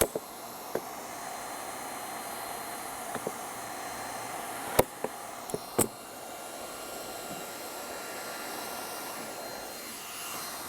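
Hand-held hot-air roofing heat gun blowing steadily, with a few sharp clicks, the two loudest about a second apart near the middle.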